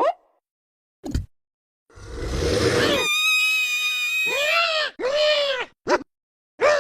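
High-pitched screaming cries: a rough scream, then a long steady squeal, then a run of short cries that rise and fall in pitch, broken by abrupt silences.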